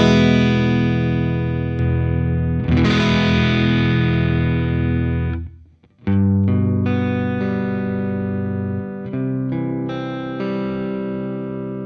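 Electric guitar played through a Catalinbread Dirty Little Secret MkIII overdrive pedal. Two distorted chords are struck and left to ring, then cut off just before halfway, followed by a riff of changing chords.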